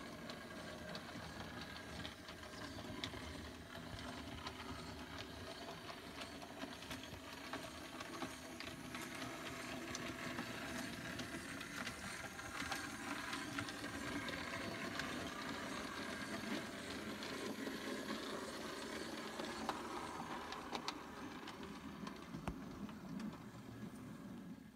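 00 gauge model train running along the layout's track: a steady running noise with frequent small clicks from the wheels on the rails.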